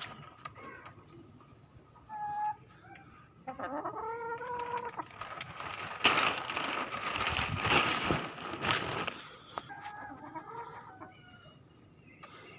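Chickens clucking and calling in short, separate calls, with a louder, rougher stretch of sound in the middle.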